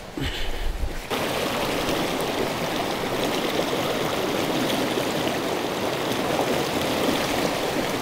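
Fast stream rushing over rocks, a steady loud rush of water that cuts in suddenly about a second in. Before it, a few soft footfalls on a forest trail.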